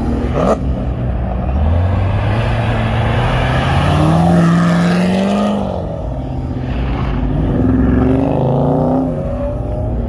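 Car engine revving hard: its pitch climbs over several seconds, drops away about six seconds in, then climbs again. A short sharp click comes about half a second in.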